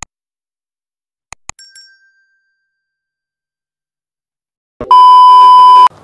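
Subscribe-animation sound effects: a mouse click at the start, two quick clicks about a second and a half in with a faint short ding, then near the end a loud steady beep lasting about a second.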